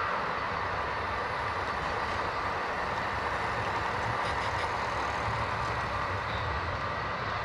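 Model freight train running past: a Union Pacific diesel locomotive model followed by boxcars, making a steady rumbling, rolling noise, with a few faint clicks about four seconds in.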